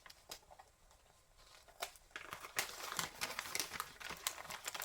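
Wrapping paper crinkling and rustling as it is worked off a wrapped package, a few scattered crackles at first, then a dense run of crackling from about halfway through.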